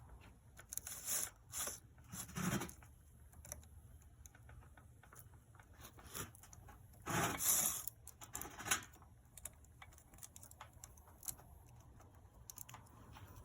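Saw chain clicking and rattling as its drive links are worked by hand into the guide bar groove, in scattered clicks with the loudest cluster about seven seconds in.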